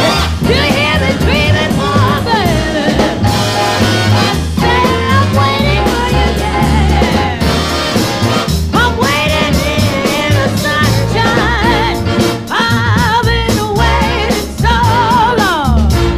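Music: a song with a singing voice over drums and a steady bass line.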